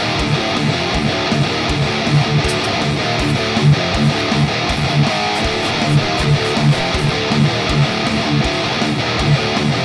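Background music: a strummed guitar track with a steady beat.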